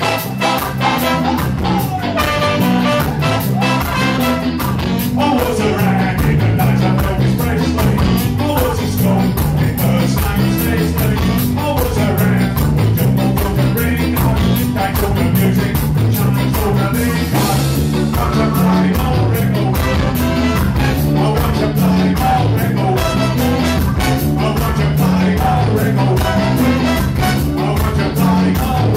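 A live ska band playing: saxophone and brass horn over a drum kit, with a steady, even beat.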